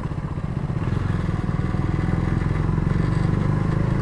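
KTM Duke single-cylinder motorcycle engine running steadily at low road speed while riding, with an even, rapid exhaust pulse.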